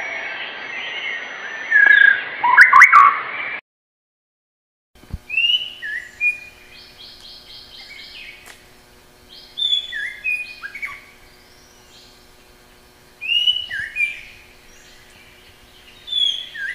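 Recorded songbird song: a dense chorus of overlapping chirps and whistles that cuts off abruptly after about three and a half seconds. After a second of silence, a single bird sings clear downslurred whistled notes and short rapid trills in phrases every few seconds.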